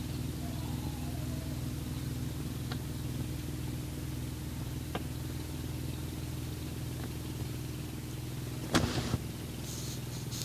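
Cat purring close to the microphone: a low, steady, pulsing purr, with a brief cluster of loud knocks about nine seconds in.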